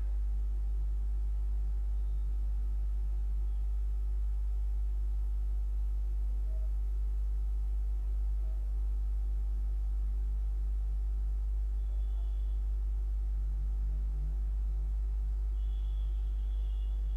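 Steady low electrical hum, with a few faint higher steady tones over it.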